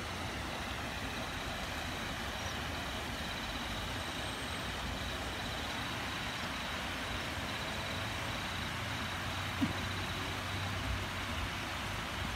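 Water spilling over a curved concrete pond weir, a steady rushing noise, with one short knock late on.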